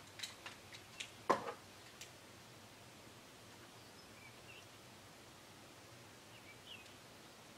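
A few light clicks and taps of makeup tools being picked up and handled, the loudest about a second in, then quiet room tone with two faint bird chirps, in the middle and near the end.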